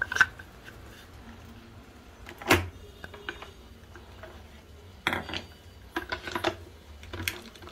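Plastic clicks and knocks of a Dolce Gusto Mini Me capsule holder being handled and slid in and out of the machine's slot, with a louder knock about two and a half seconds in and a flurry of smaller clicks near the end.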